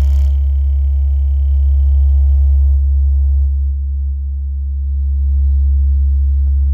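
American Bass DX-10 10-inch subwoofer playing a loud, steady low-frequency sine test tone at high power. The tone dips briefly in level about four seconds in.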